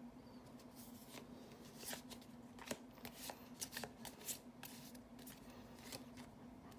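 Magic: The Gathering cards being flipped and slid over one another in the hand, a run of quick crisp swipes starting about a second in, over a steady faint low hum.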